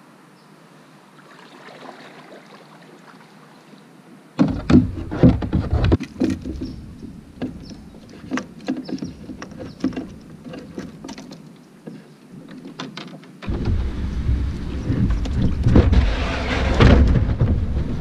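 A plastic fishing kayak coming ashore at a concrete launch ramp: a sudden rough scrape and bumps about four seconds in as the hull grounds, then scattered knocks and clicks of the paddle and gear being handled. Near the end comes a long, loud low rumble.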